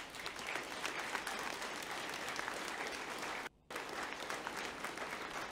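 Audience applauding: steady, dense clapping that breaks off for a split second about three and a half seconds in.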